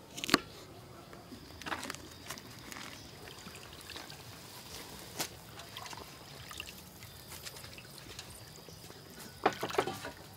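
Pot of soup bubbling and simmering, with a single sharp knife strike on a wooden chopping board about a third of a second in and a brief clatter of handling near the end.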